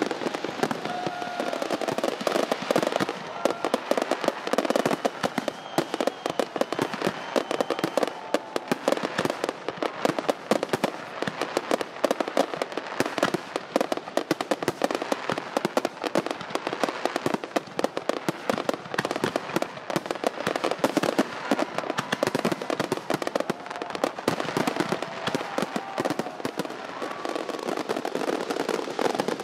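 Fireworks going off without a break: a dense, unbroken run of bangs and crackles.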